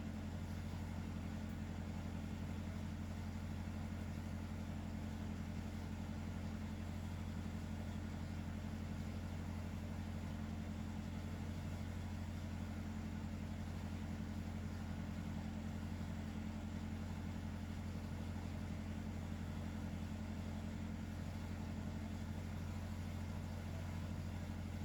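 A steady low hum that holds unchanged throughout, with no breathing rhythm in it.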